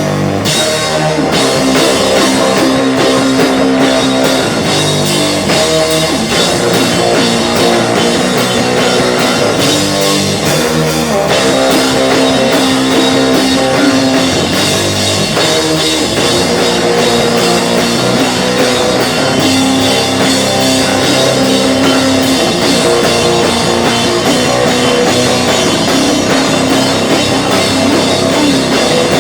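Rock band playing live at full volume: electric guitar chords over a drum kit, steady and unbroken.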